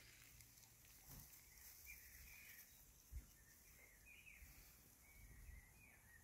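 Near silence, with several faint, short, high chirping calls scattered through.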